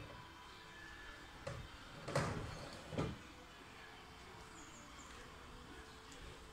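A few knocks and clunks of hands handling the belt grinder's metal parts, the loudest a little over two seconds in, then faint room tone. The grinder is not running.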